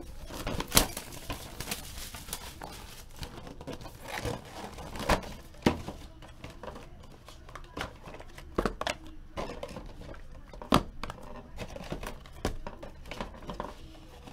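Plastic wrapping crinkling and cardboard trading-card boxes being handled and opened, with several sharp knocks and clicks scattered through.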